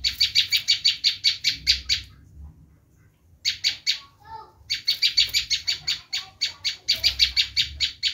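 Prenjak lumut giving its 'screaming' call: rapid runs of sharp, high chirps, about seven a second, broken by two short pauses.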